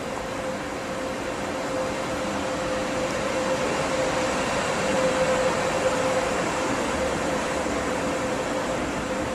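Regional train of double-deck coaches hauled by a Taurus electric locomotive rolling along the platform: a steady rolling noise of wheels on rail with a steady hum running through it, growing louder to a peak about halfway, then easing slightly.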